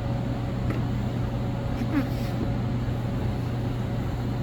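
Steady machine-shop hum: a low drone with a constant higher tone, from the CNC mill and shop machinery standing by between cuts. A faint brief sound is heard about halfway.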